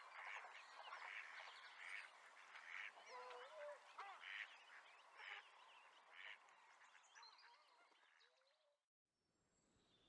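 Faint whooper swan calls, a series of short notes about one a second, fading away near the end.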